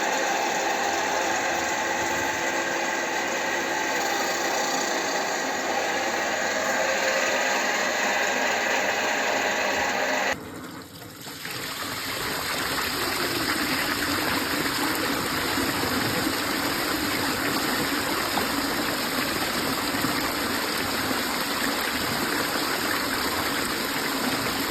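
A machine running steadily with several even whining tones. After an abrupt cut about ten seconds in, a steady rush of flowing water.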